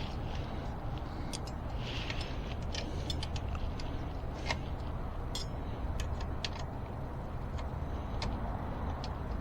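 Scattered light metallic clicks and taps as a brake caliper bolt and tools are worked against the e-bike's brake mount while the bolt refuses to thread in, over a steady low background rumble.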